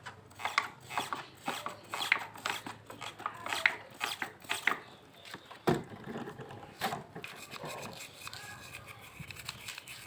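Scrubbing and rubbing strokes on a motorcycle brake caliper as it is cleaned with diesel: short scraping strokes about two a second, then a single knock a little before six seconds in, followed by fainter rubbing.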